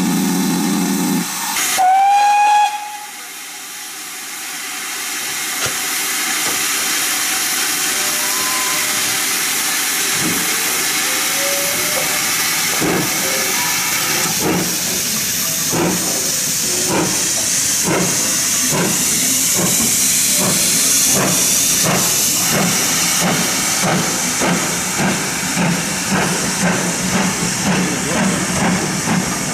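GWR Manor class 4-6-0 steam locomotive No. 7828 departing with its train. A short whistle sounds about two seconds in, then steam hisses from the open cylinder drain cocks. From about thirteen seconds in come slow exhaust beats that gradually quicken as the engine gets its train moving.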